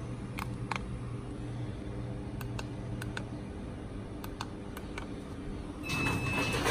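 A series of small plastic button clicks, several in quick pairs, over a steady low hum. Near the end the Ryobi GD126 garage door opener starts up, and the door begins to move with a louder, rising noise.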